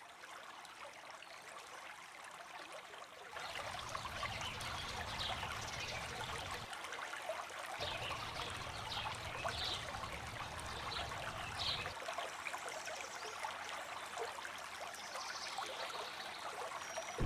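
Steady sound of trickling running water, like a stream, with a few short high chirps in the middle.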